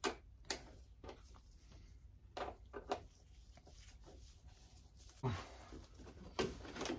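Quiet handling sounds: a few sharp clicks and taps, spaced out, as a small hand tool works the fasteners of a plastic motorcycle fairing panel.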